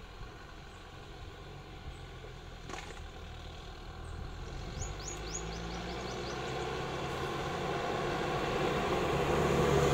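Eicher bus engine pulling away and approaching, growing steadily louder as it draws near. A few short high chirps come about five seconds in.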